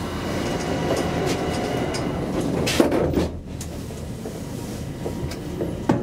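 1972 Kone Asea Graham inclined elevator car running along its track, a steady hum with a few steady tones. A loud clatter comes about three seconds in, after which the run is quieter, and there is a click near the end.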